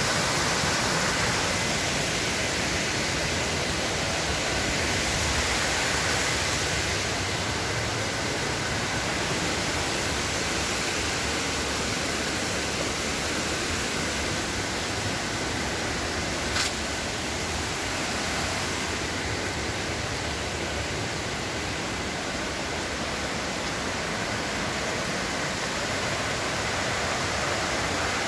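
Steady rush of a waterfall pouring over rock ledges, with one short click about two-thirds of the way through.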